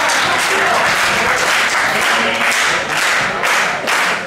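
Small standing audience applauding, a dense patter of hand claps.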